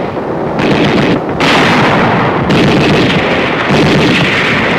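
Battle din of gunfire and explosions, dense and continuous, with no break between shots.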